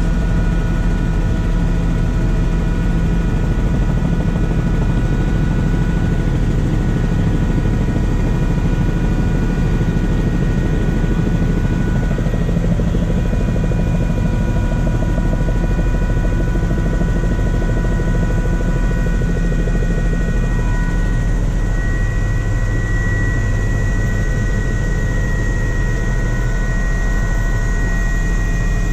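Helicopter in flight heard from inside the cabin: steady rotor and engine noise, with a few thin steady whining tones above it.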